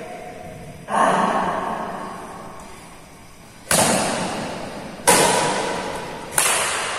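Badminton rackets striking a shuttlecock in a rally, four sharp hits (the first softer) that echo and fade slowly in a large, bare hall.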